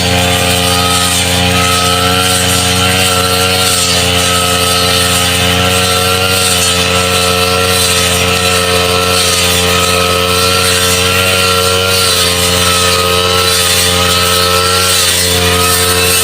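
Small two-stroke grass-cutter engine running steadily at high speed, its pitch wavering slightly.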